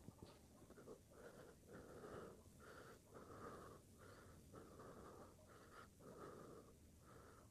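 Near silence: faint room tone with a soft hiss that swells and fades about twice a second.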